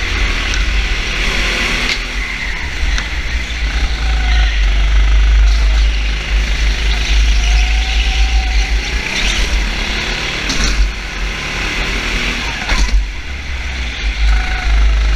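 Motor vehicle engines running, with a few rises and falls in pitch, over a heavy constant low rumble.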